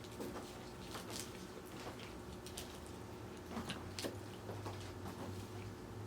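A person chewing a mouthful of salad close to the microphone: soft, irregular crunching clicks.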